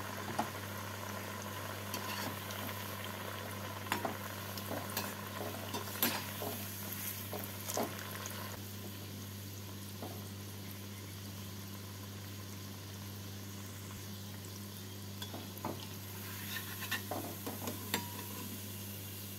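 Bread sweets deep-frying in hot oil and ghee in a metal kadai, a steady sizzle, with sharp clicks and scrapes of a perforated metal slotted spoon turning and lifting them. The clicks are frequent in the first half and again near the end.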